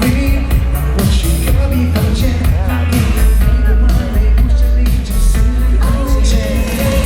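Pop song performed live: singing over a loud band backing with a heavy, steady bass.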